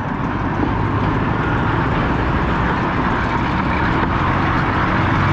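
Steady road noise from riding a motor scooter on an unpaved road close beside a container truck: engine drone mixed with tyre and wind noise.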